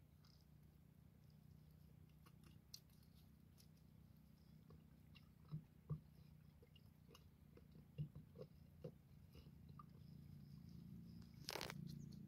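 Faint wet squelching and crackling of bare hands digging into the mud of a mud crab burrow, with a few sharper clicks in the middle and a brief louder rustle near the end.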